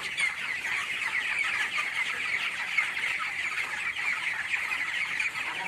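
A flock of young broiler chickens chirping and clucking together in a dense, continuous chatter of many overlapping high calls.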